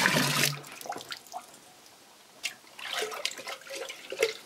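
Liquid poured from an enamel pot into a wooden barrel of wort, splashing loudly for under a second and then stopping. Scattered drips and small splashes follow, with a busier patch of splashing near the end.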